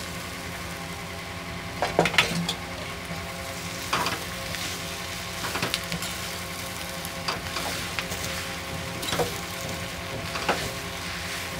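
Mashed boiled potatoes sizzling in a hot, oiled kadhai as a spatula stirs them into the fried onion and spice masala. The spatula scrapes and knocks against the pan every second or two over the steady sizzle.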